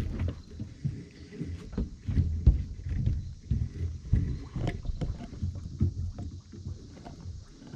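Handling noise of a catfish rod being pulled from its boat-mounted holder and a fish being fought and reeled in: irregular knocks and clicks against the boat over a low rumble, with a sharper knock about two and a half seconds in.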